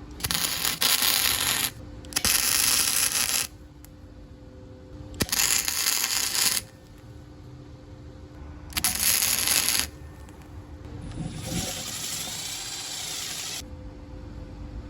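Welding in short bursts: four crackling, hissing welds of a second or so each, cut off sharply, with a faint steady hum between them. About eleven seconds in, a longer and quieter stretch of the same kind of noise follows.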